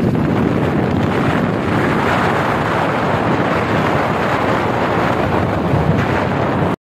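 Loud, steady wind rushing over the microphone of a moving 90cc motorcycle, an even noise that hides any engine note. It cuts off abruptly near the end.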